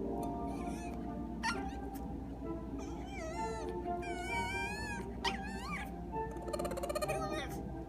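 Peke-Pom dog making high-pitched, warbling, squirrel-like whines and chirps instead of a bark, in answer to a command to speak. The calls come several times, with a buzzy, stuttering call near the end. Background music plays under them.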